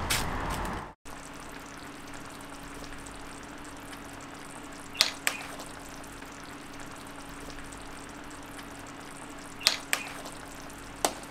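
Kitchen sound of a pot of borscht broth simmering on the stove: a steady hiss with a low hum, broken by a few sharp metallic clinks of utensils, twice in quick pairs. Before it, a brief louder outdoor noise cuts off abruptly about a second in.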